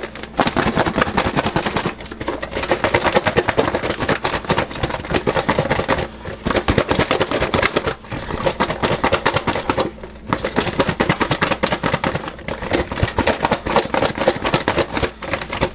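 Fried chicken wings in sticky chili sauce shaken hard inside a lidded plastic Gladware container: a fast, continuous rattle of thuds against the plastic walls, with brief pauses every two seconds or so.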